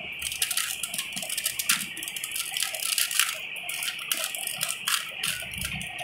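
Plastic 3x3 Rubik's cube being turned by hand in quick succession, its layers clicking and rattling with each move as a last-layer corner-swapping algorithm is carried out.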